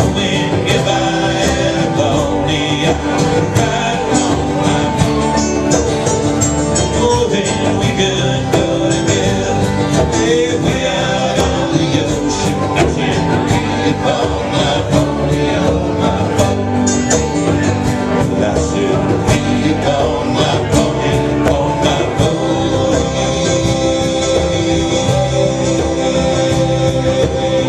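Live band playing a country-style song, with guitars prominent and dense, continuous strumming and picking.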